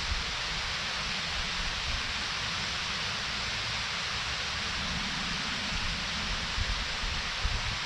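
Waterfall rushing steadily, a dense even hiss of falling water, with a few brief low rumbles underneath near the end.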